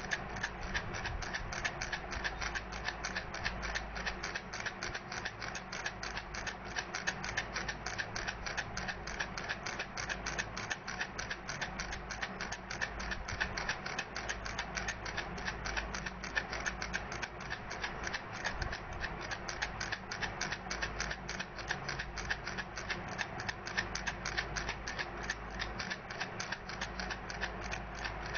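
Baby rattle being shaken continuously: a rapid, steady clicking.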